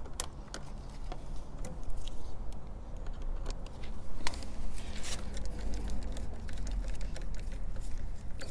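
Irregular light clicks, taps and small rattles of a screwdriver and wiring connectors being handled and pushed into place around a motorcycle's battery terminals, over a low steady rumble.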